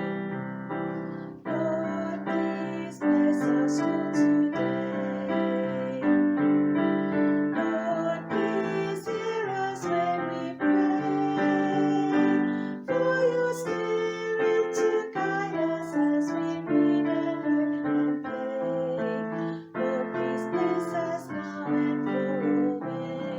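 Piano music playing a steady, gentle accompaniment.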